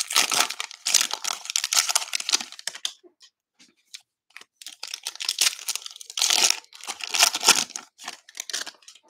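A plastic Mosaic baseball card pack wrapper being torn open and crinkled by hand. About three seconds of tearing and rustling are followed by scattered small crackles and a few more bursts of crinkling later on.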